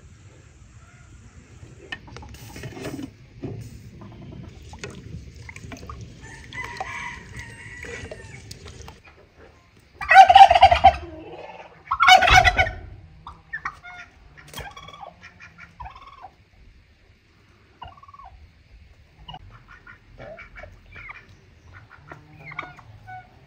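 White domestic turkey gobbling twice, loud, about ten and twelve seconds in, with softer short calls of farmyard fowl before and after.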